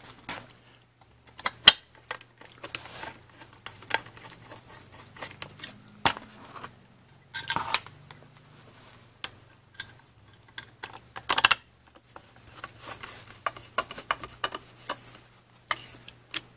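Small steel countersunk screws clinking and scraping against a bare aluminum plate as they are handled, dropped into countersunk holes and turned with a screwdriver: irregular sharp metallic clicks with a few short scraping rattles.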